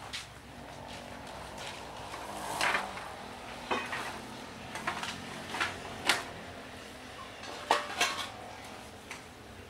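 Pieces of scrap metal clinking and clanking as they are handled, about eight separate knocks, each with a short ring.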